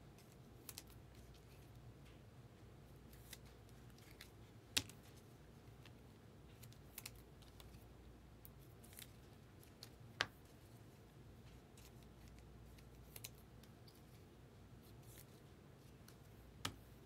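Faint clicks and scrapes of rigid plastic toploaders as trading cards are slid into them and handled, with a few sharper clicks about five seconds apart.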